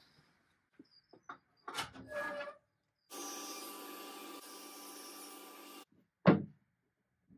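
Workshop handling of a wooden trim strip: a few light knocks and short scrapes, then a machine running steadily for nearly three seconds, then one sharp wooden knock about six seconds in as the strip is laid down on the dresser top.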